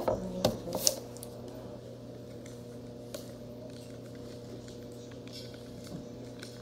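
A couple of light knocks from the tin being handled on the counter in the first second, then a steady low electrical hum with a few faint clicks.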